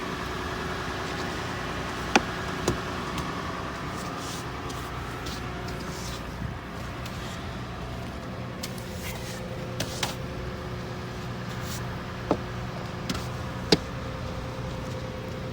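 Ice being scraped and chipped off a car, with repeated short scraping strokes and a few sharp knocks of the scraper against the thick ice. A steady low hum runs underneath.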